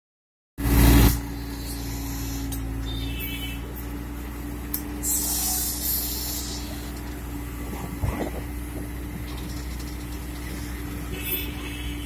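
Bobcat skid-steer loader's diesel engine running steadily while its backhoe attachment digs sludge from a drain. A loud burst comes as the sound starts, a brief hiss around five to six seconds in, and a sharp knock about eight seconds in.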